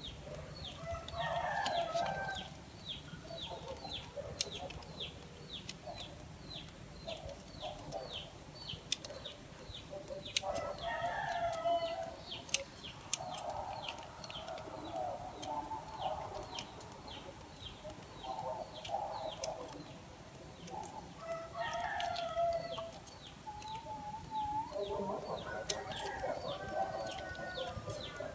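Chickens clucking and a rooster crowing, the crow rising near the end. A few sharp snips of pruning shears cutting bonsai twigs, and a faint high chirp repeating about twice a second.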